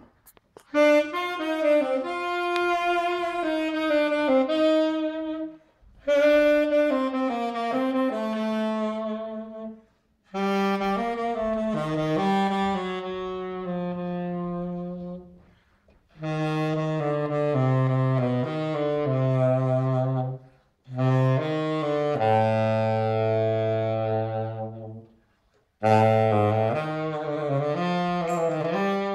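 Unaccompanied tenor saxophone playing slow, tango-style melodic phrases, about six of them, each a few seconds long with a short breath between. Some phrases drop into the instrument's low register.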